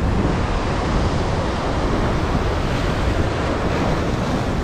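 Ocean surf surging and breaking against a rock ledge, a steady wash of white water, with wind rumbling on the microphone.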